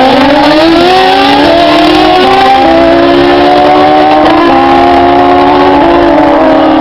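Sport motorcycle engine running hard at high revs. Its pitch climbs and shifts in steps a few times, as the revs change under way.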